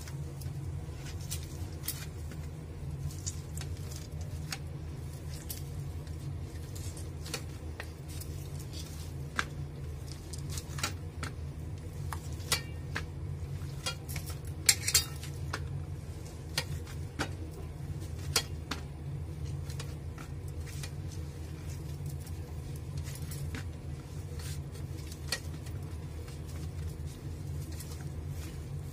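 Hands kneading a ball of dough in a steel plate, with scattered sharp clicks of glass bangles knocking together and against the metal, over a steady low hum.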